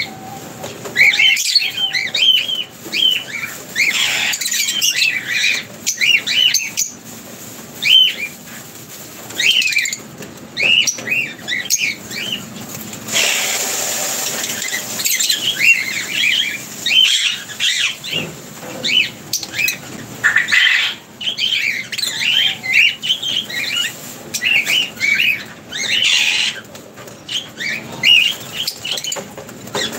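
A flock of lovebirds chattering: many quick, high chirps and squeaks overlapping almost without pause, with a short rushing noise about halfway through.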